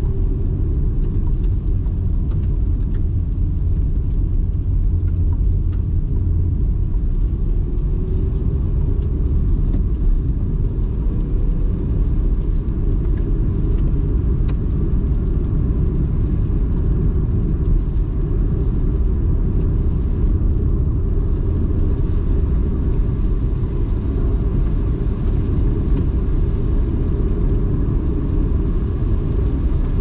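Car driving on a wet road, heard from inside the cabin: a steady low rumble of engine and tyres.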